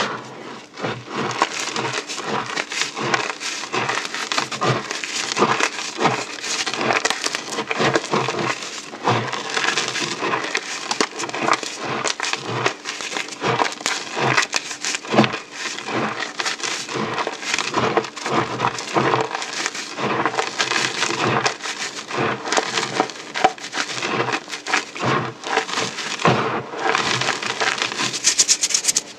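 Dried Orbeez hydrogel beads and chalk being crushed: a dense, continuous run of crunches and crackles, with louder snaps scattered throughout.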